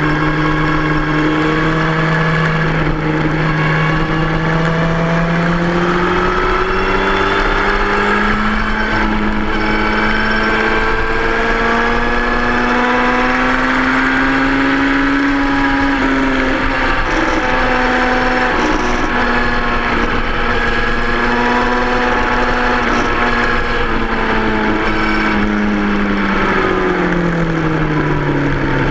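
2003 Yamaha R1's inline-four engine running hard on track, with wind rush over the microphone. Its pitch climbs gradually through the first half, holds, then falls away near the end as the revs drop.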